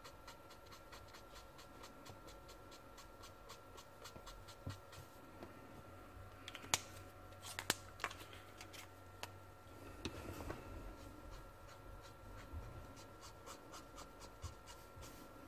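Faint scratching of a marker nib on paper in short shading strokes, with a couple of sharper clicks about halfway through.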